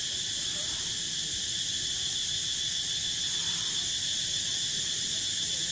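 Steady, high-pitched chorus of insects in the forest, even and unbroken.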